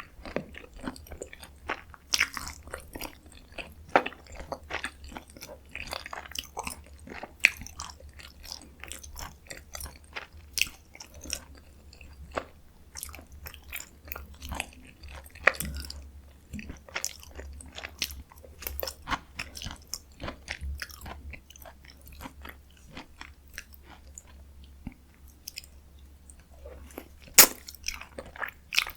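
Close-miked chewing of spicy stir-fried chicken (dakgalbi), with irregular wet, sticky mouth clicks and bites and an occasional sharper crunch; one loud crack comes near the end.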